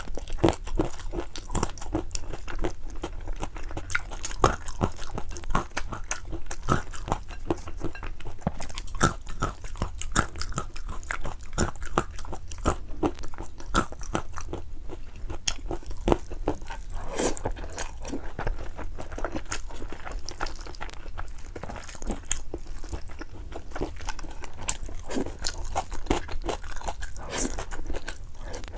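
Close-miked chewing and eating of spicy noodles: a continuous stream of short clicks and smacks from the mouth.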